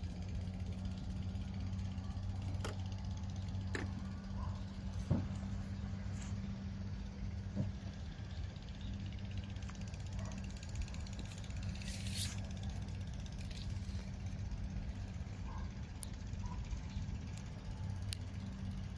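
A steady low hum, with scattered faint clicks and knocks and a brief high hiss about twelve seconds in.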